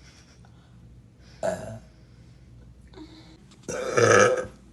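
A young woman burping: a short burp about a second and a half in, then a longer, louder burp near the end.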